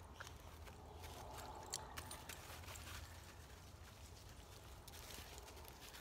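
Faint rustling and scattered light clicks, a little busier a second or two in: dogs stepping about on dry leaf litter, and a pocket knife being handled.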